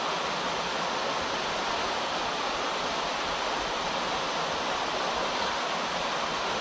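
Floodwater rushing down a flooded street: a steady, unbroken rush of flowing water.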